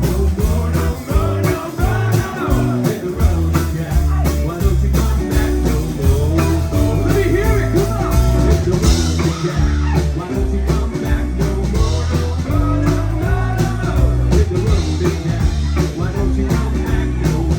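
Live rock-and-blues band playing: drums keeping a steady beat under a bass line, with guitar and a voice singing.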